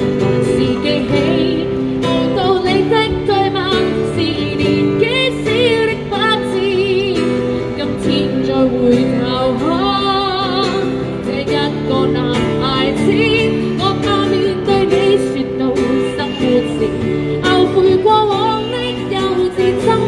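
A woman singing into a microphone while playing acoustic guitar, with vibrato on held notes about halfway through.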